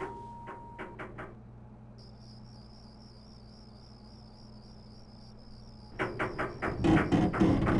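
Crickets chirping in a steady, wavering high trill. About six seconds in, a run of loud knocking and rumbling joins it.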